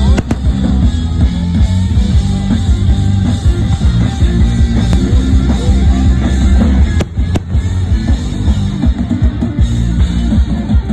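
Loud rock music with a drum kit playing throughout.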